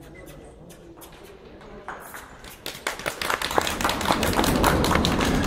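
Hoofbeats of a Highland pony pulling a carriage over the arena surface. There is a rapid, uneven run of knocks that grows louder from about two seconds in as the pony comes closer.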